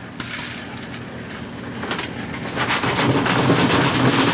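Gravel and sand rattling in a plastic gold-classifier screen shaken over a bucket, sifting pay dirt. The shaking starts gently and becomes louder and quicker about halfway through.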